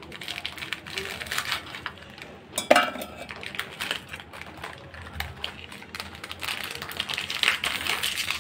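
Biscuits being dropped into a stainless-steel mixer-grinder jar: many small clicks and clinks against the steel, with one louder clank that rings briefly about two and a half seconds in.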